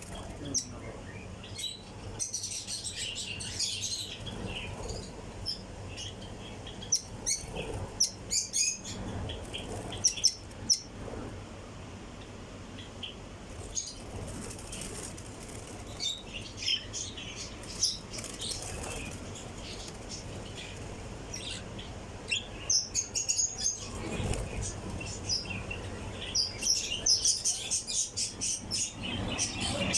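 Pet birds and their chicks chirping in short, high-pitched bursts, with wings fluttering now and then.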